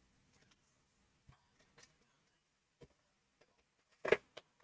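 A few faint clicks and knocks from things being handled while someone rummages through stored items, with a short, louder knock a little after four seconds in.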